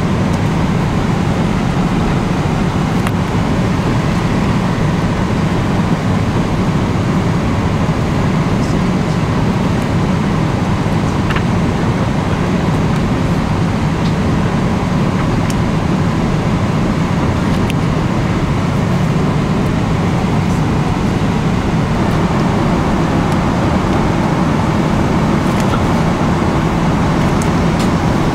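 Steady cabin noise inside a Boeing 777-300ER airliner in flight: the even, low rush of airflow and engines, unchanging throughout.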